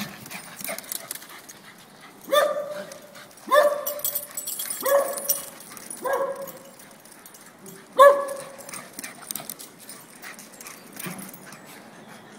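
Dog barking in play: five short barks spaced one to two seconds apart, the last one the loudest.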